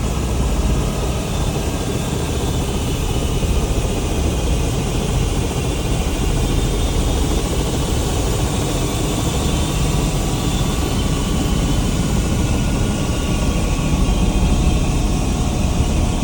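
Helicopter running steadily, its engine and rotor making a constant, heavy noise without change.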